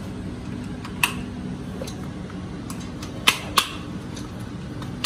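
Sharp plastic clicks as a Britax B-Ready stroller's bumper bar is pushed onto the frame mounts: one click about a second in, two quick ones about a third of a second apart past the three-second mark, and another at the end. A steady low hum runs underneath.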